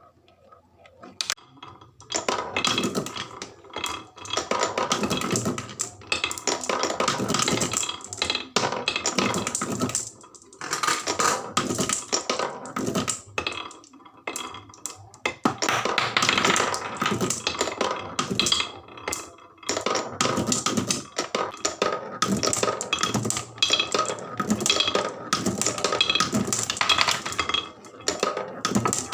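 Many marbles rolling and clattering down wooden marble-run slopes, a dense stream of clicks and knocks that starts about two seconds in, with a couple of brief lulls.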